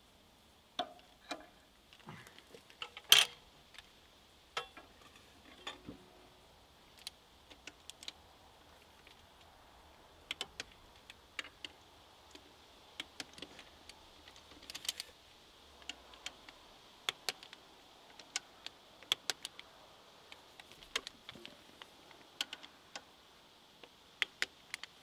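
Irregular small metal clicks and clinks of hand tools and parts being handled on a tractor's exposed clutch and pressure-plate assembly, with one sharper clank about three seconds in.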